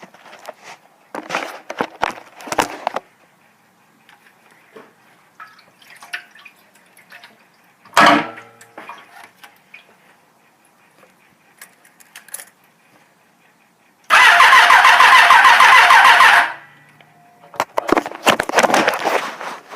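1989 Suzuki GSX-R750 inline-four's electric starter cranking the engine for about two seconds, then stopping without the engine catching: a no-start that the owner traced to no fuel reaching the carburetors through a bad petcock. Scattered clicks and knocks come before and after, with a sharp knock about eight seconds in.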